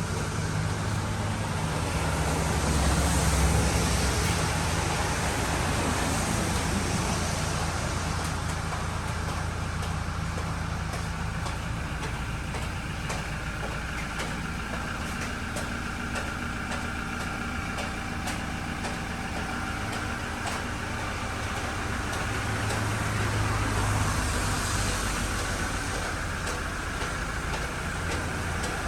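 A motor vehicle's engine running with steady road noise, swelling a little about three seconds in and again near the end.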